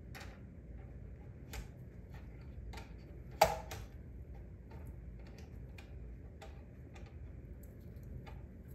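Light, scattered clicks and taps of the wooden parts and knob fittings of a mini swing wool picker being handled and adjusted by hand, with one sharper wooden knock about three and a half seconds in.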